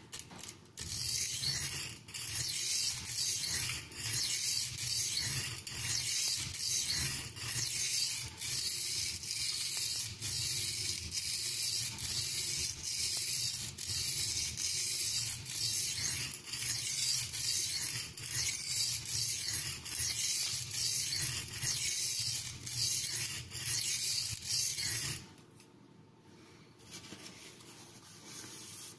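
A 15N20 carbon-steel knife blade stroked back and forth on an oiled Norton India oilstone: a steady, rhythmic scraping of roughly one and a half strokes a second that stops about 25 seconds in.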